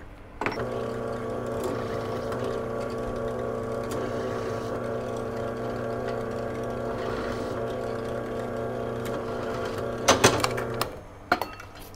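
Benchtop drill press switched on with a click, its motor running at a steady hum while a countersink bit chamfers the holes. A few sharp clatters come just before the motor cuts off near the end.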